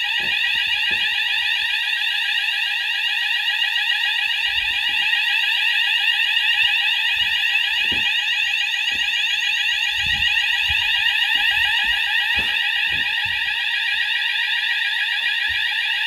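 Fire alarm sounders of a Hochiki ESP addressable fire alarm system sounding continuously, a loud tone of fast repeating rising sweeps. They were set off by a manual call point while the panel runs on standby battery with the mains power off. Faint knocks from handling and footsteps underneath.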